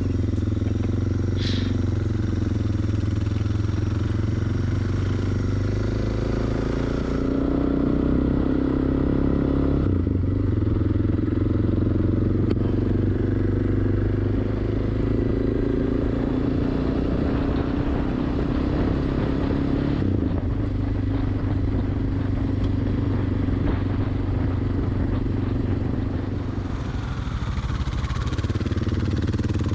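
Single-cylinder dual-sport motorcycle engine, likely a Suzuki DR650, running steadily at road speed under a rush of wind noise; the engine note shifts a few times as speed changes.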